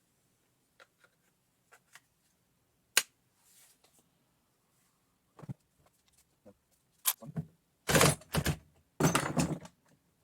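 Handling clicks with one sharp click about three seconds in, then a RUYIKA cordless 3/8" ratchet run in a few short bursts near the end, driving against a bolt that is already tight.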